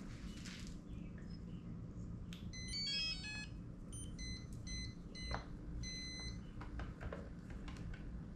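Electronic beeps from the RC wheel loader's electronics as its battery is connected: a quick run of stepped tones about two and a half seconds in, then several short separate beeps over the next few seconds, over a low steady hum.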